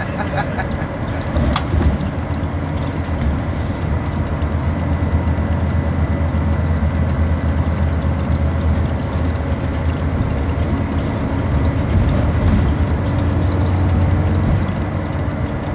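Engine and running noise of a Scania-chassis Alexander Dennis Enviro 400 double-decker bus, heard from inside the passenger cabin: a steady low drone, with one sharp knock about a second and a half in and the engine note rising slowly near the end.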